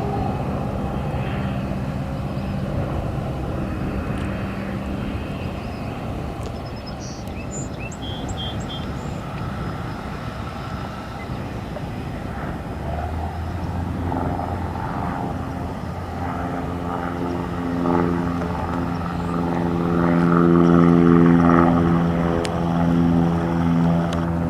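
Propeller airplane's piston engine running with a steady drone. About halfway through, a clearer pitched drone sets in and grows louder.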